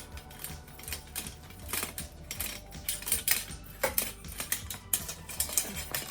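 Patio umbrella rib arms clicking and clinking against each other and the wire ring as they are threaded onto it, a rapid irregular patter of light clicks.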